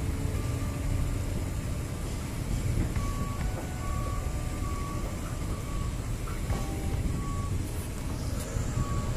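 Steady low rumble aboard a slowly moving ship, with several short, high beeps a few seconds in.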